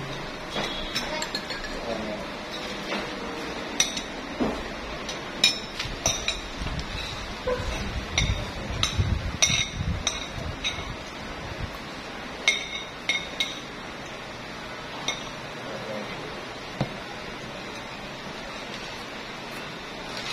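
Metal spoon clinking against a ceramic bowl and plates while eating, in short irregular clinks that come thickly through the middle and thin out near the end.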